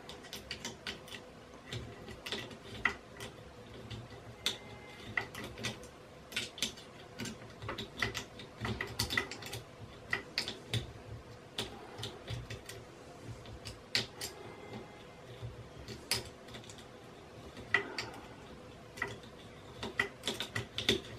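Irregular small clicks and taps of an Allen key and fingers working bolts and nuts on a 3D printer's aluminium frame.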